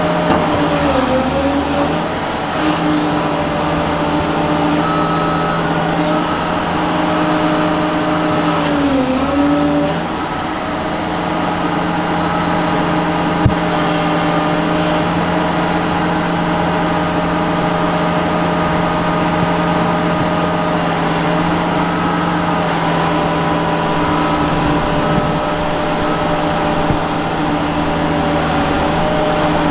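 Liebherr R954 Litronic tracked excavator's diesel engine running steadily, its pitch sagging briefly about a second in, around nine seconds in and again near the end. One sharp click midway.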